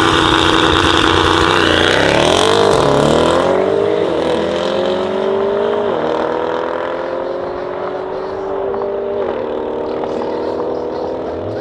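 The PP-Performance-tuned Mercedes-AMG GT63 S's twin-turbo V8, with downpipes, launching hard in a drag race and accelerating away at full throttle. A loud rush marks the first few seconds, then the engine note climbs and drops back at each of several upshifts, fading as the car pulls away.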